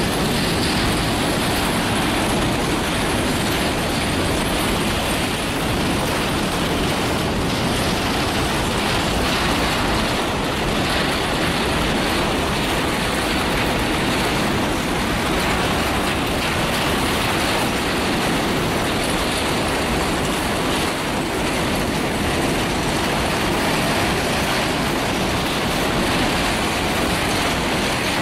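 Diesel-electric freight train running past: a steady rumble of the locomotives with wheel and rail noise from the wagons.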